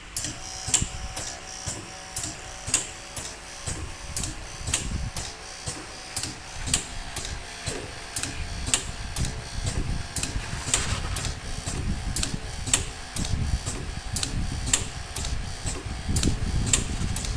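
Pneumatic connector plug-and-pull force tester running its automatic test cycle: its air cylinders actuate with sharp, regular clicks about twice a second, over a low rumble and a faint steady hum.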